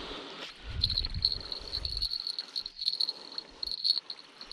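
A cricket chirping: a high, pulsing trill that starts about a second in and keeps going, over low rumbling noise in the first two seconds.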